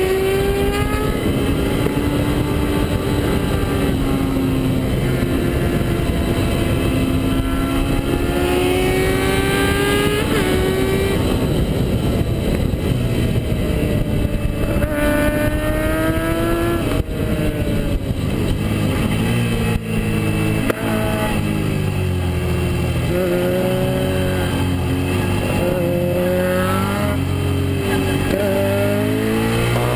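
Suzuki SV650S's 645 cc V-twin engine under track riding, its note climbing with the revs and dropping sharply at each gear change, over steady wind rush.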